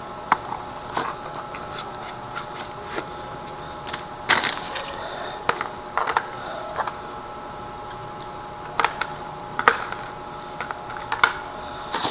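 Unboxing handling noises: irregular clicks, taps and plastic crinkling as a helmet chin-mount strap is pulled out of its card-and-plastic packaging, with a longer rustle about four seconds in.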